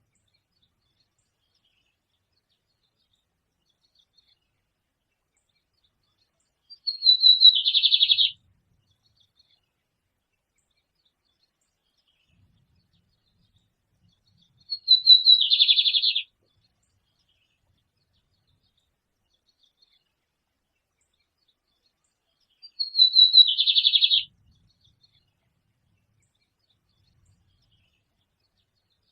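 A songbird singing the same short phrase three times, about eight seconds apart. Each phrase lasts about a second and a half: a quick run of high notes falling in pitch, then a denser, slightly lower ending.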